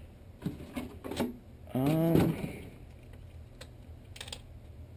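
Small clicks and knocks of hands working on a radio-controlled car, with a short vocal sound about two seconds in.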